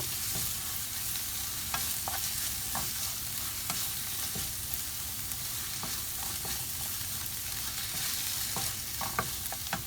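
Grated onion with ginger-garlic paste sizzling in hot oil in a pan as it is stirred, the spoon scraping and clicking against the pan now and then.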